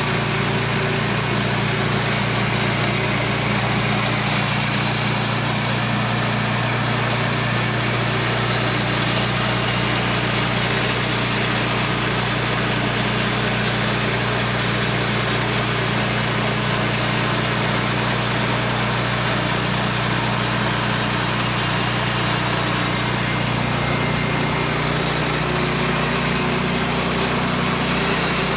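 Gas-engine Woodland Mills HM126 band sawmill running steadily at an even pitch as it makes a pass through a spruce log.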